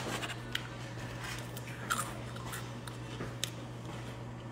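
A person eating close to the microphone: a few scattered crunchy bites and mouth clicks over a steady low hum.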